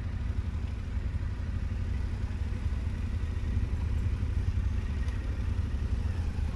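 Motorcycle engine running steadily while under way, a constant low rumble.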